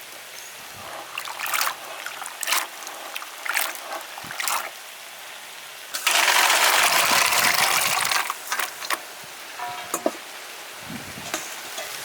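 Stir-fry sizzling in hot oil, with short scrapes and clacks of a utensil against the pan. About six seconds in, a sudden loud burst of sizzling lasts about two seconds, as happens when something goes into the hot pan.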